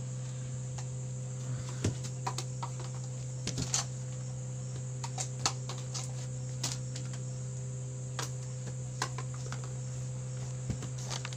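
Light plastic cups tapping and clacking now and then, as short sharp clicks scattered irregularly over a steady low hum.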